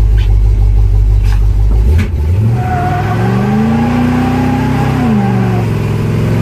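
Car engine running steadily, then about two seconds in it is revved up, held for about a second and let fall back to a steady idle.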